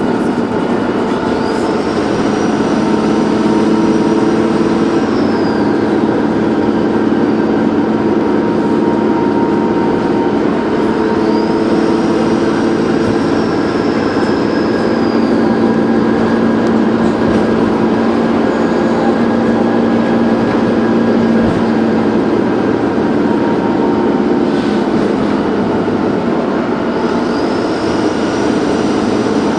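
Dennis Trident 2 double-decker bus's diesel engine running steadily under way, with a high turbo whistle that rises, holds and falls away three times, about every ten to fifteen seconds.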